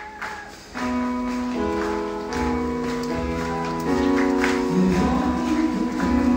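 Music with held, sustained chords, coming in about a second in and growing louder midway.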